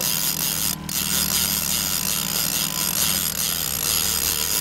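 Fishing reel being cranked to wind in a hooked sockeye salmon, its clicker ratcheting steadily, over the low steady hum of the boat's engine.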